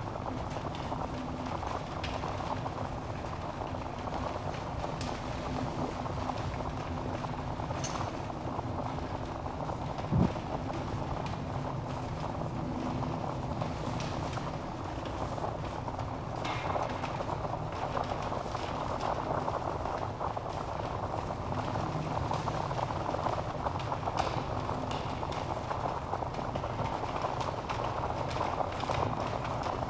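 Wood fire burning in a fireplace: a steady low rush of flames with scattered crackles and pops, and one louder low thump about ten seconds in.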